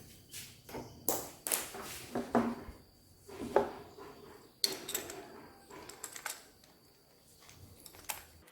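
Irregular clicks, taps and knocks of hard objects being handled, about a dozen, the loudest about three and a half seconds in; no motor running.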